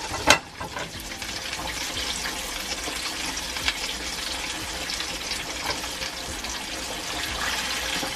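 Flour-coated chicken pieces deep-frying in a pan of hot oil: a steady bubbling sizzle. A single sharp knock sounds just after the start.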